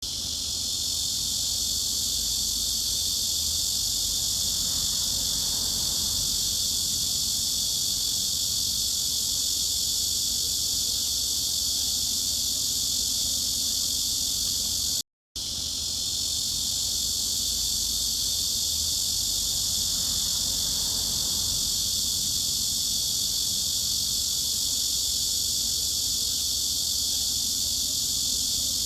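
Cicadas buzzing in one steady, high-pitched drone over a faint low rumble. It cuts out for a split second about halfway through, then starts again exactly as before, as a loop.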